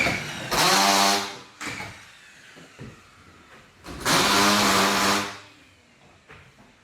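Power screw gun driving drywall screws into a plasterboard ceiling: two short runs of the motor, each about a second long, roughly three seconds apart.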